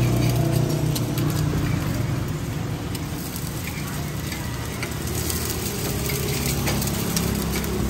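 Oil sizzling steadily as crispy taro and oyster omelette fries, over a low background hum.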